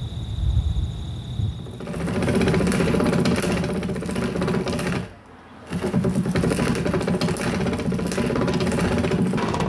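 Auger bit of a hand-cranked timber-framing boring machine cutting into a timber beam, a steady mechanical churning that starts about two seconds in and breaks off briefly about halfway before going on. Before it, wind on the microphone with a steady high tone.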